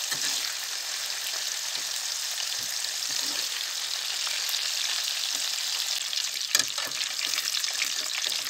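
Long green peppers deep-frying in hot oil in a pot: a steady crackling sizzle, with a slotted skimmer stirring them and lifting them out. There are a few light knocks, and one sharper knock about six and a half seconds in.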